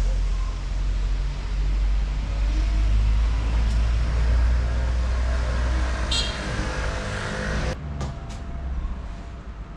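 Outdoor street noise: a steady low rumble of road traffic, with a short high chirp about six seconds in. It drops off abruptly about eight seconds in, leaving quieter background with a few light clicks.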